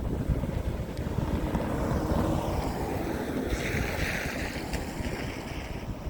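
CSX freight train rolling past with a steady rumble of wheels on rail, fading slightly toward the end. Wind buffets the microphone throughout.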